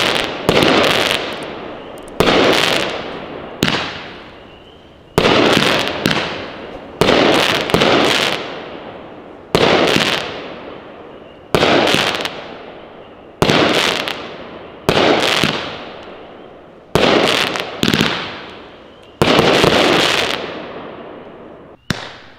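A 16-shot consumer fireworks cake firing at a steady pace, about one shot every one and a half to two seconds. Each shot is a sudden sharp break followed by a fading crackle from the gold brocade-style stars with crackling pistils.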